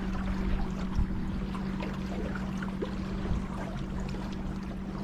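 River water trickling and splashing around a small boat, with scattered small drips, a steady low hum underneath and a single knock about a second in.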